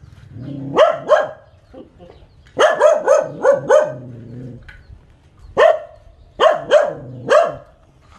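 Dog barking in sharp, loud barks in three bursts: two, then a quick run of five, then four more spaced out.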